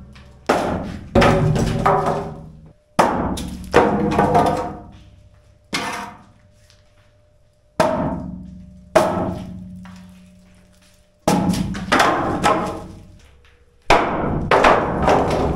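Hammer blows knocking the wooden concrete formwork loose from beneath a suspended ICF floor, where it is held only by spray foam. There are about a dozen heavy knocks at irregular intervals, each ringing out for a second or so.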